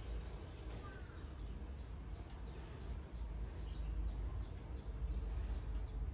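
Small birds chirping: a run of short, quick falling chirps in the middle, over a steady low background rumble.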